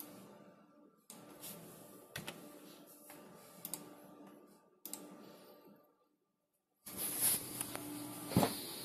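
Computer keyboard and mouse clicks, a few sharp taps at a time, faint against the room. From about seven seconds in, louder rustling handling noise as the handheld camera is moved, with one knock near the end.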